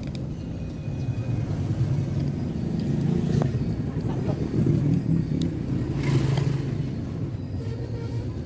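Deep, steady bass rumble played through a small Bluetooth speaker: a JBL Go 3 amplifier driving Tribit MaxSound Plus drivers in a bass test.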